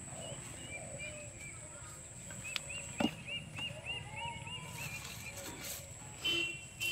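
A bird calling in runs of short, arching chirps, several a second, that stop and start, over a steady high-pitched whine; a single sharp knock about three seconds in.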